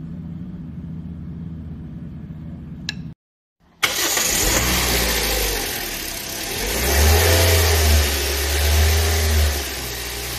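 Car engine running with its accessory drive belt turning on the pulleys, the belt in normal condition. It idles steadily for about three seconds and cuts out briefly. It then returns much louder and noisier, with the engine speed rising and falling.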